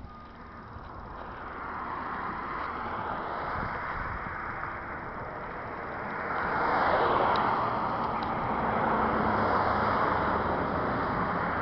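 Highway traffic going by: a rushing noise of tyres and engines that builds gradually, then swells louder about six and a half seconds in as a vehicle passes close by.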